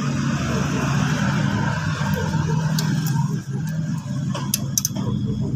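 Motorcycle engine running steadily, with a few light metallic clicks near the end.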